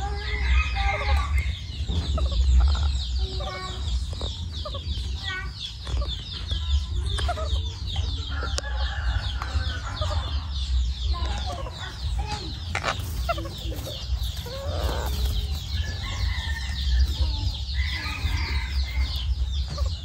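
A group of baby parrots calling together: a dense, rapid high chirping throughout, broken every second or two by louder, raspier calls.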